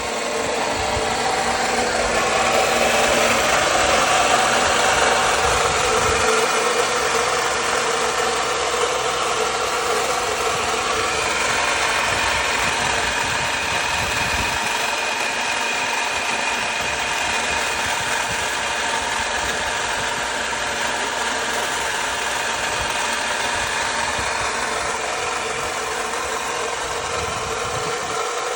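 2009 Lexus IS250's 2.5-litre V6 running with a loud, steady noise that a new water pump has not cured.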